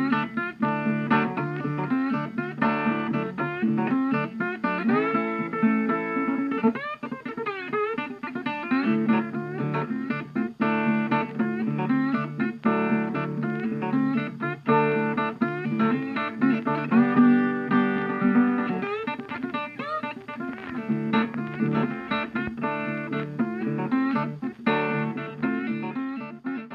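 Background music played on guitar, plucked and strummed in a bluesy style, with notes bending and sliding in pitch.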